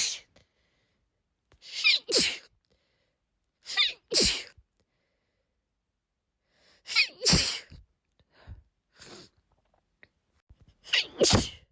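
A woman sneezing repeatedly in a fit: five loud sneezes, one right at the start and four more about two to four seconds apart. Each starts with a short pitched 'ah' and ends in a sharp 'choo' burst, with quieter breaths between them.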